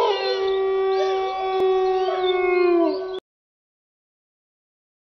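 Wolf howling in a logo sound effect: several long, drawn-out pitched voices held together, with gliding calls rising and falling over them. It cuts off suddenly about three seconds in.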